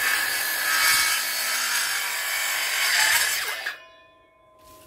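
Circular saw cutting through the wood of a fallen tree, loud and continuous, stopping abruptly about three and a half seconds in.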